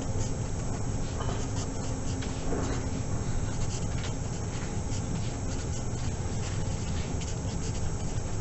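Sharpie permanent marker writing on paper in short, irregular strokes, over a steady low hum.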